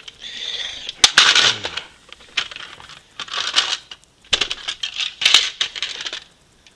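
Plastic Nerf blasters being handled and set down on a couch cushion: clattering plastic clicks and rustles in several bursts, with a sharp knock about a second in and another just past four seconds.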